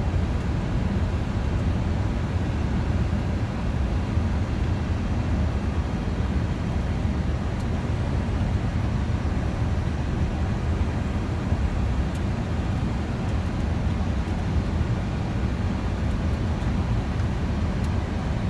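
Steady low rumble of flight-deck noise inside a Boeing 747-400 on final approach, from airflow and engines, with no distinct events.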